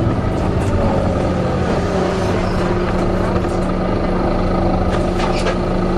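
Volvo B9TL double-decker bus running, with a steady engine drone and the whine of its cooling fan, the 'hoover' noise, which falls in pitch over the first couple of seconds and then holds steady. A few short clicks near the end.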